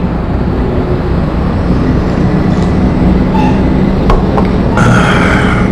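Steady low rumble of background noise, with a couple of short clicks about four seconds in.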